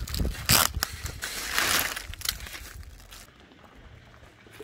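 Thin clear PVC vinyl sheet and its plastic mailer bag crinkling as they are handled and unfolded, with a sharp rustle about half a second in and a longer crinkling stretch around the middle, going quieter after about three seconds.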